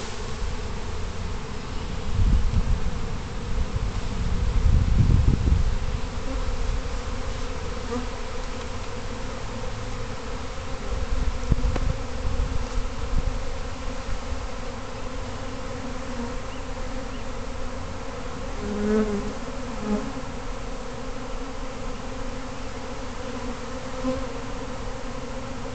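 A honey bee swarm buzzing steadily, the combined hum of thousands of bees in the air around the hive box they have just been shaken into. A low rumble sounds about two to six seconds in.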